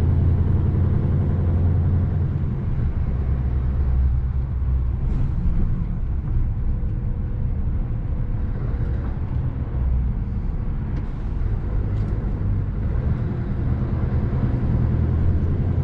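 Diesel lorry engine running steadily under way, a low, even drone while pulling a loaded machine trailer.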